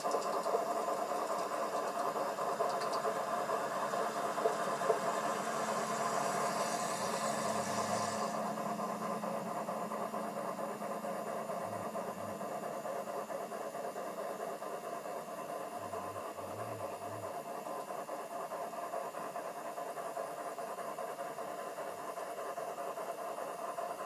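G-scale USA Trains Hudson model locomotive running with its train, giving a steady mechanical hum of motor, gears and wheels on the track. A brief higher hiss comes in about a quarter of the way through and stops, and the hum grows slightly quieter over the rest.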